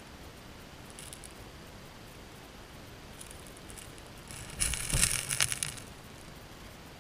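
Underwater, river gravel clattering as a spawning chinook salmon hen sweeps her tail against the streambed at her redd. A few faint ticks, then a loud burst of rattling clicks about four and a half seconds in that lasts about a second and a half, over a steady hiss of the current.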